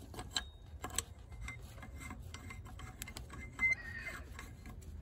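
A few faint, scattered metallic clicks and light rubbing as hands fit a new brass pressure reducing valve and thread its union nut onto the pipe by hand.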